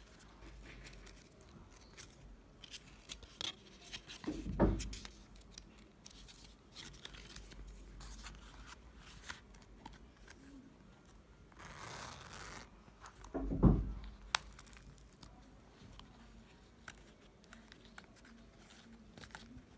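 Hands handling a Louis Vuitton Emilie wallet in embossed leather: small clicks and rustles, two thumps, and a short scratchy rasp a little past the middle as the gold zip of the coin pocket is worked.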